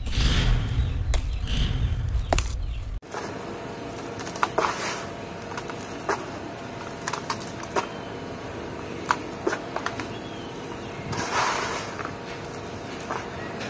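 Hands crumbling, crushing and sifting dry sand-cement dirt in a plastic basin: gritty crunching and sandy rustling, with many small crackles and ticks from breaking lumps and falling grains. A low rumble under the crunching in the first three seconds cuts off abruptly.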